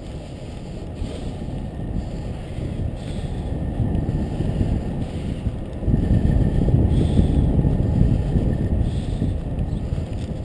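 Wind rushing over a bicycle-mounted camera's microphone while riding along a paved road, a steady low rumble that grows louder about six seconds in.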